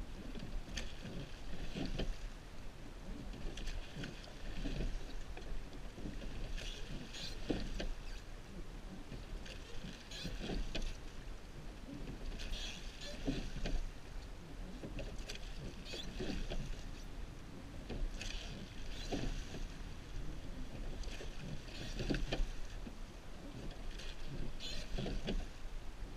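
Surf boat crew rowing together: oar blades catching and pulling through the water with a splash about every three seconds, over a steady rumble of wind on the microphone.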